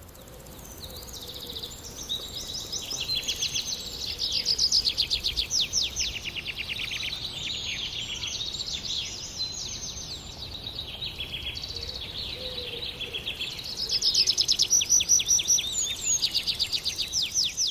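Many birds chirping and calling together in dense, rapid trains of short high chirps, loudest about four seconds in and again near the end, over a faint steady background hiss.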